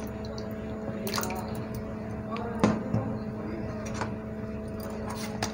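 Wet soaked tamarind pulp squished and rubbed by hand through a steel mesh sieve, dripping into the bowl below, with a few sharp clicks, the loudest about halfway through. A steady hum runs underneath.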